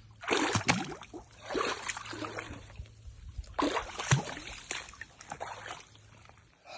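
A hiker's legs wading through swamp water, sloshing and splashing with each stride, about four strides in a row.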